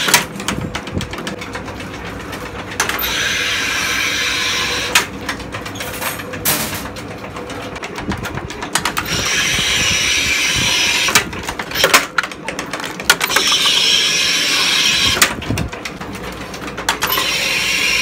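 Chain-driven drawing machine pulling brass strip: runs of steady hissing mechanical noise, each two to three seconds long, come about every four seconds, with sharp metallic clanks between them.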